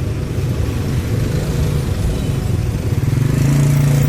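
Motorcycle and other vehicle engines running in stalled traffic, a steady low hum that grows louder about three seconds in.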